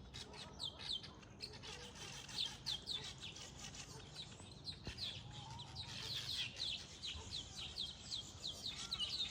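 A group of nest-building birds chattering continuously: a dense stream of short, high, quickly falling chirps, several a second.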